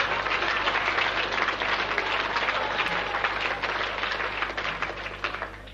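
Audience applauding, a dense clatter of clapping that fades away near the end.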